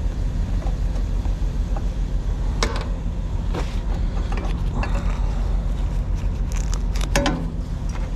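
Truck engine idling with a steady low hum, under scattered clicks and scrapes of hand work on a taped-over air brake line.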